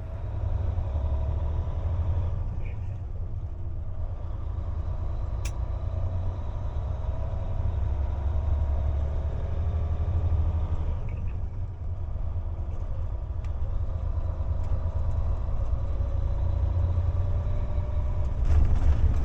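Truck driving on a rutted road, heard from inside the cab: a steady low engine and road rumble. There is a sharp click about five and a half seconds in, and the rumble grows louder near the end.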